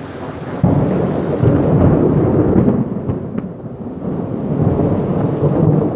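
Thunder in a heavy rainstorm: a loud low rumble that starts suddenly about half a second in, eases around the middle and swells again near the end, over the steady hiss of heavy rain.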